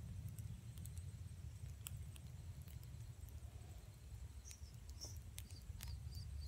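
Open wood campfire burning, crackling with scattered sharp pops over a low steady rumble. A few short high chirps or squeaks come near the end.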